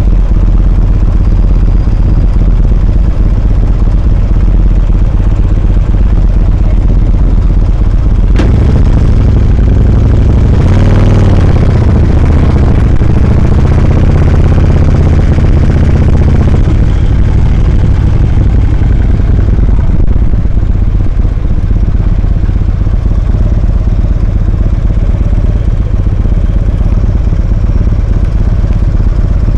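Motorcycle engine running close to the microphone, low and steady, with a sharp click about eight seconds in. From about ten seconds in the engine note gets louder for some six seconds as the bike pulls away, then settles back to a steady low run.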